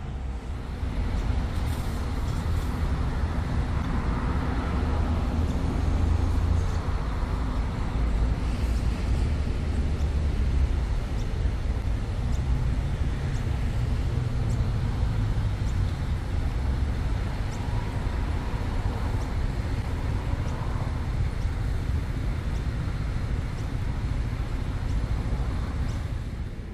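Road traffic on city streets: a steady low rumble of passing cars and buses, heaviest in roughly the first ten seconds.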